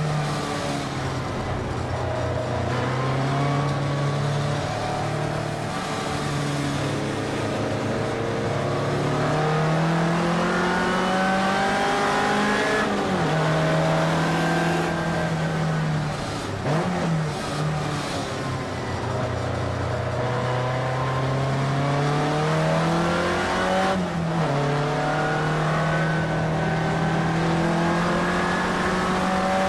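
Race-prepared VW Beetle with a VW AP water-cooled inline-four engine, heard from inside the cockpit at racing speed. The engine note climbs steadily and then drops back sharply several times as the car shifts gear and lifts off for corners.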